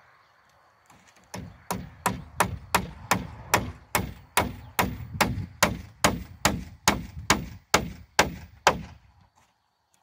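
A hand hammer striking in a steady, rapid series of about twenty blows, nearly three a second, starting about a second in and stopping shortly before the end.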